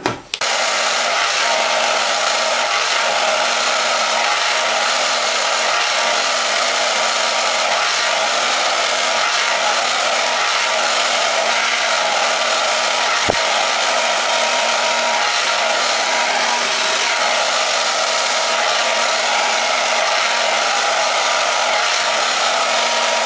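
Handheld hair dryer blowing steadily, switched on just as the sound begins.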